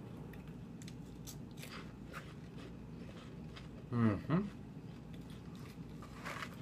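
A person chewing crunchy baked cornmeal cheese-puff snack sticks, with soft, scattered crunching crackles. About four seconds in comes a short hummed 'mm' that falls in pitch.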